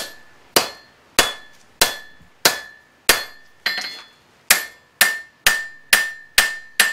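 Blacksmith's hand hammer striking hot horseshoe steel on an anvil, putting a notch between the blade and handle of a letter opener. About thirteen ringing blows, each with a metallic ring that ringing on briefly, at a steady pace of under two a second that quickens a little after the middle.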